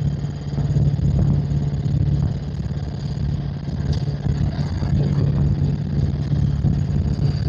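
Helicopter engine and rotor noise heard from inside the aircraft: a steady low drone with a constant hum under it.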